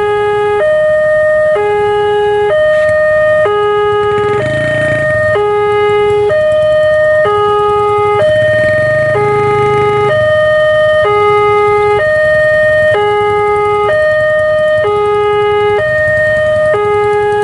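Railway level-crossing warning alarm sounding an electronic two-tone ding-dong, a lower and a higher tone alternating evenly about once a second: the signal that the barriers are down for an approaching train. Waiting motorcycle and truck engines run beneath it, swelling louder about four seconds in and again near ten seconds.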